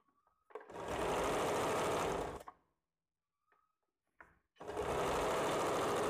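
Sewing machine stitching fabric in two runs of about two seconds each, with a fast, even needle rhythm, starting and stopping; a few small handling clicks fall between the runs.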